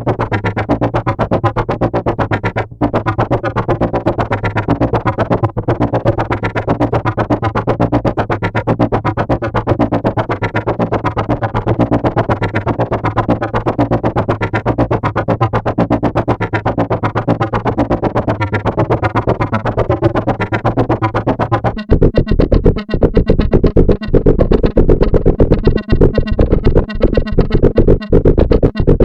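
Synthesizer sound from Arturia's Buchla Easel software emulation: a dense buzzing texture over a steady low drone. About 22 seconds in it switches to a louder, choppier pulsing pattern.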